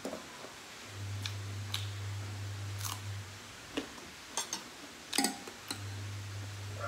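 Spoon and utensils clinking against dishes and a noodle pot: about eight light, separate clicks at uneven intervals. A low hum comes and goes beneath them.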